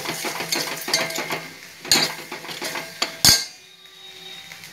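Steel ladle scraping and clinking against a stainless steel pot while stirring curd, with two louder knocks about two and three seconds in; the stirring stops soon after the second knock.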